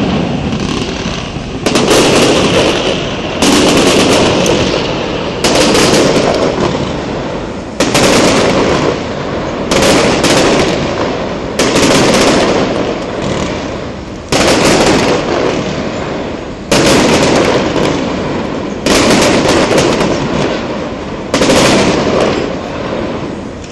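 Aerial firework shells bursting one after another, a loud bang about every two seconds, each fading away over the next second or two before the next.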